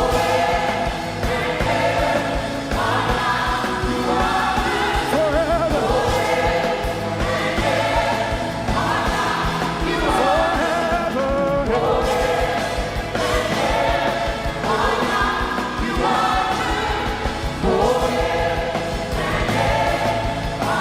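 Choir and congregation singing a gospel praise chorus over a live band with a steady drum beat, in repeated phrases about two seconds long.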